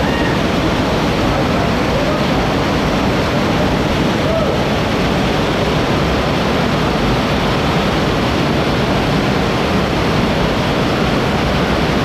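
Underground waterfall inside a cave, pouring onto rock and over a person sitting beneath it: a loud, steady rush of falling water.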